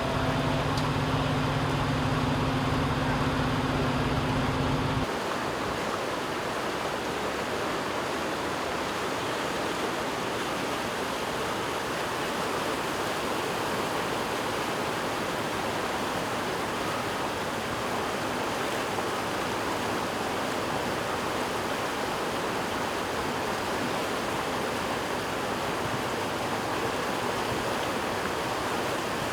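Fast-moving floodwater rushing steadily. For about the first five seconds a steady low hum sits under it, which cuts off abruptly.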